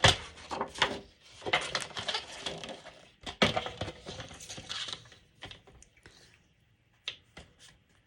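Paper being handled on a crafting table: rustling, with sharp clicks and taps from tools set down and picked up. These come thickly in the first few seconds, then thin out to a few scattered ticks.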